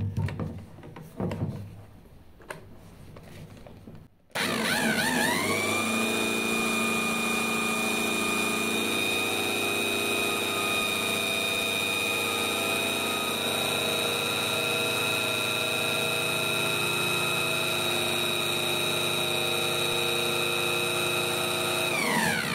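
A handheld electric drill spins a motorcycle magneto flywheel to generate AC for testing a voltage regulator. There are a few knocks as the drill is fitted, then about four seconds in it starts up. Its whine rises within a second to a steady pitch of several tones, holds, and falls away as it stops near the end.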